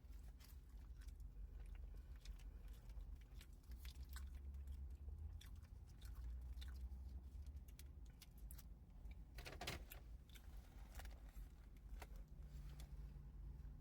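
A person chewing food close to the microphone, with scattered small wet clicks and smacks and a louder cluster just before ten seconds in, over a faint low rumble.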